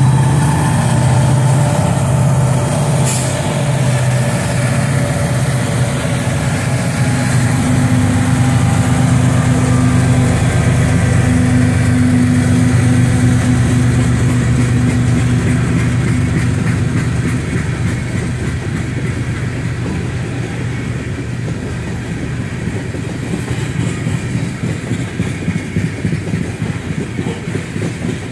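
Diesel-electric freight locomotives passing close by, their engines running with a heavy low drone that fades over the first half. The freight cars follow, rolling past with a steady rhythmic clatter of wheels on rail that stands out more toward the end.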